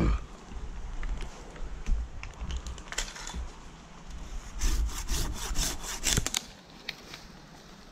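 Curved hand pruning saw cutting through a eucalyptus branch: a few strokes, then a fast run of back-and-forth strokes in the second half that stops shortly before the end.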